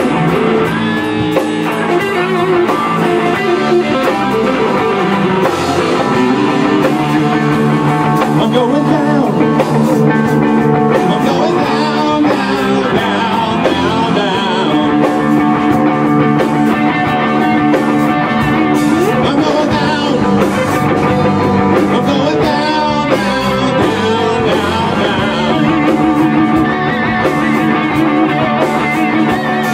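A rock band playing live: distorted electric guitars through amplifiers and a Tama drum kit keeping a steady beat, with a lead vocal sung into the microphone.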